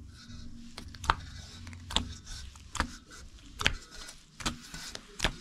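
Hands kneading a very soft, sticky pide bread dough, with a short sticky slap about once a second.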